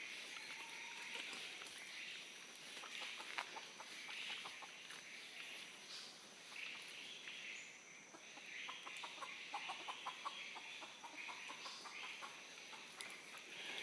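A feral rooster clucking faintly and repeatedly, with footsteps crunching through dry leaf litter.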